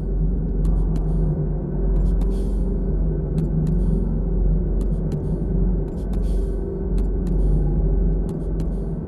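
A steady low rumble, overlaid with sharp ticks and short hissing bursts that recur every second or so.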